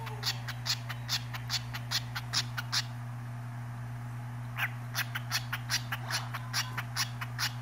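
Cockatiel calling in a rapid series of short, harsh chirps, about four a second, with a pause of about a second and a half midway.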